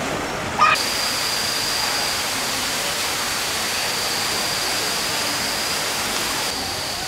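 A short loud sound about half a second in, then a steady rushing hiss of water with a thin high tone running through it.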